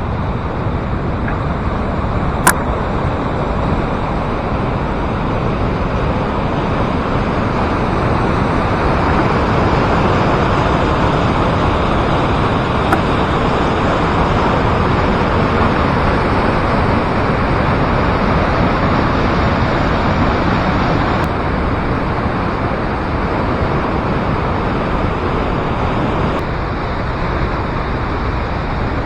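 Waterfall pouring, a loud, steady, unbroken rush of falling water, with one brief sharp click about two and a half seconds in.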